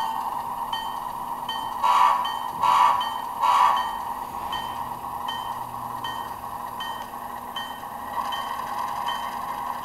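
HO-scale DCC sound model of a Seaboard Air Line RS3 diesel locomotive running, its sound decoder ringing the bell in an even beat, a little under twice a second. Three short horn blasts sound about two, three and three and a half seconds in, the loudest part.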